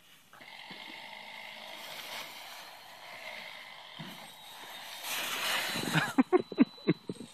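Dry autumn leaves rustling and crackling as a Chihuahua puppy moves through a leaf pile, getting louder about five seconds in, then a quick run of sharp crunches near the end as leaves are scattered.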